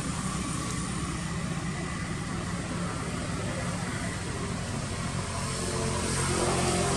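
A motor engine droning steadily, growing a little louder near the end as a higher whine comes in.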